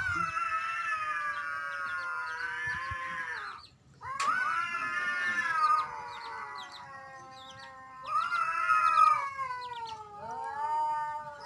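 A cat yowling in long, drawn-out, wavering calls, three or four in a row with a brief break about four seconds in, the later calls sliding down in pitch. These are the mating caterwauls of a cat courting.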